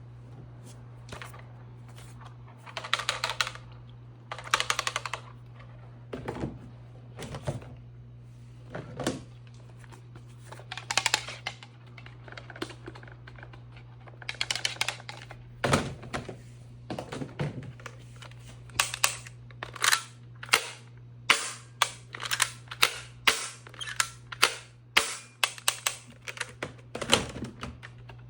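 Plastic clicks, clacks and rattles of a Nerf sniper toy blaster being worked and fired, in irregular clusters at first and then a quicker run of sharp clicks in the second half, over a steady low hum.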